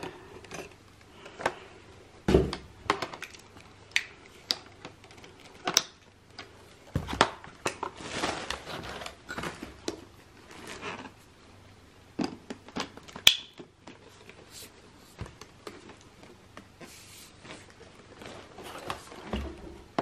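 Hard plastic parts of a Greenote GSC50 cordless stick vacuum being handled and fitted together: scattered clicks and knocks, with a stretch of rustling about eight seconds in.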